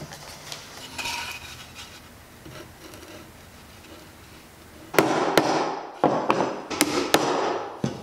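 Hammer striking the wooden pieces of a pine birdhouse: a quick, irregular run of about eight sharp blows starting about five seconds in.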